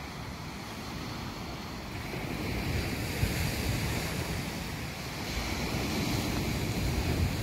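Small waves washing onto the shore, with wind rumbling on the microphone.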